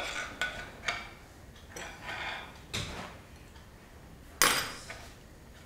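Kitchen utensils being handled on a counter: a few soft clinks and knocks of a spoon and bowls, with one sharper, louder clink about four and a half seconds in.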